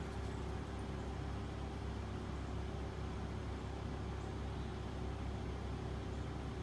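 Steady low engine rumble with a faint steady hum over it, without change.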